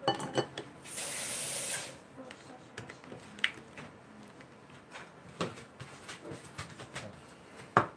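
A steady hiss lasting about a second near the start, followed by scattered light clicks and knocks.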